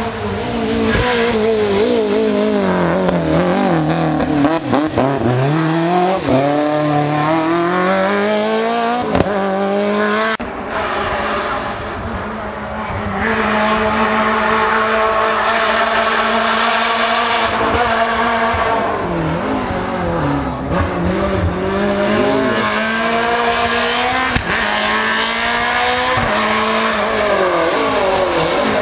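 Rally car engines revving hard on a stage, the note climbing and dropping again and again with gear changes and lifts, with a brief lull about eleven seconds in.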